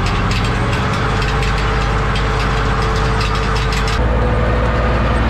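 Four-cylinder diesel of a Zetor 5245 tractor running under the drive of an Anna potato harvester, whose chain elevators and webs rattle and clatter as the hopper is tipped out into a trailer. About four seconds in, the sound cuts to a steadier, heavier engine drone with the rattling machinery.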